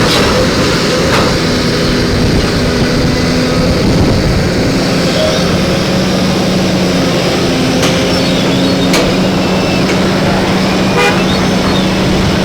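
Excavator engine running steadily under load, with a steady hum that settles in about four seconds in.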